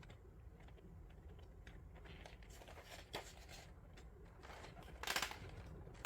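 A plastic keycap set being handled: scattered light clicks and small rattles, with a brief louder rustle about five seconds in.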